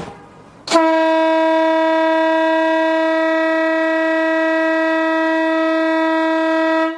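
17-inch air horn sounding one long, steady blast of about six seconds, after a brief hiss at the start; the blast cuts off sharply near the end.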